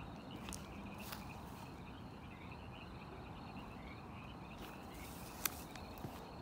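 A steady night chorus of calling frogs, a dense warbling chirping that runs without a break. A few light clicks sound over it, the sharpest about five seconds in.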